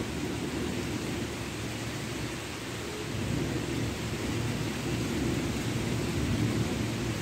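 Thunder rumbling low and continuously, swelling slightly in the second half, over a steady hiss of rain.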